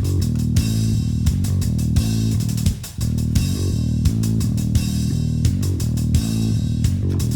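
Background music: rock with bass guitar, electric guitar and drums keeping a steady beat, with a brief break just under three seconds in.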